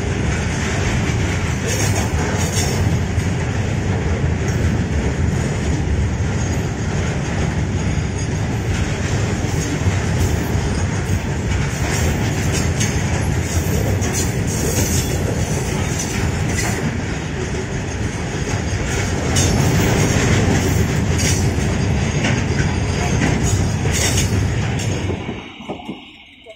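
A long goods train of open freight wagons rolling past: a loud, steady rumble of steel wheels on rail with an irregular clatter of wheels over the joints. The sound falls away suddenly near the end.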